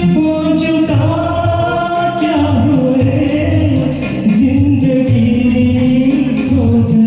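Karaoke backing music for a Hindi film song, playing an interlude between sung lines: long held, gliding melody lines over a steady beat.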